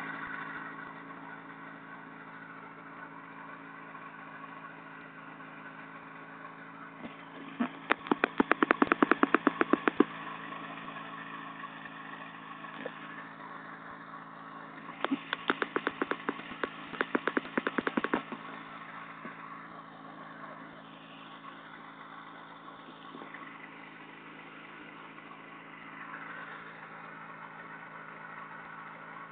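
Ultralight trike's engine idling steadily. About eight seconds in, and again about fifteen seconds in, comes a spell of rapid, loud crackling lasting two to three seconds.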